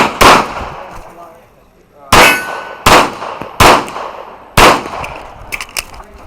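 A handgun fired five times in an uneven string, the shots spaced roughly 0.7 to 1.8 seconds apart, with steel targets clanging and ringing as they are hit. A few lighter clicks follow near the end.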